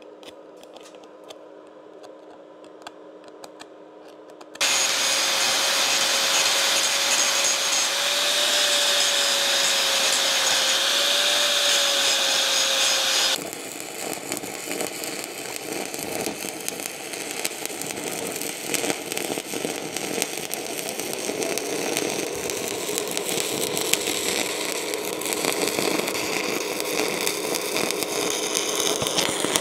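Faint ticking at first. About four and a half seconds in, a loud power tool starts up with a wavering whine. It cuts off sharply around thirteen seconds, giving way to the steady crackle and hiss of an electric welding arc on steel.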